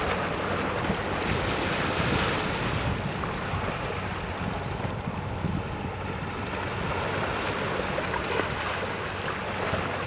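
Harbour ambience: wind on the microphone and the wash of water, over a low steady hum of ship engines.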